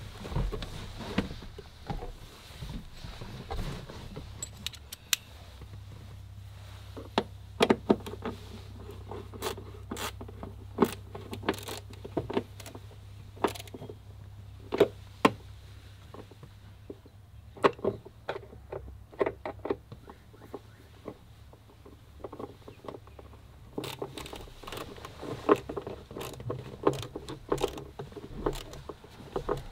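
Hands working on a van cab's interior trim around the windscreen pillar and headliner: irregular clicks, light knocks and scraping, busier near the end, over a steady low hum.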